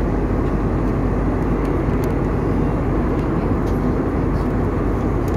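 Steady roar of an airliner in cruise flight, engine and airflow noise as heard inside the passenger cabin.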